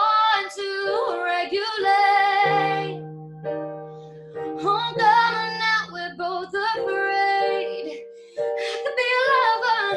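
A singer holding long, wavering sung notes without clear words over plucked acoustic string accompaniment, in a live acoustic performance of a slow ballad.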